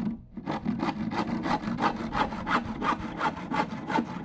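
Hand saw cutting through a piece of timber in quick, even back-and-forth strokes, about four a second.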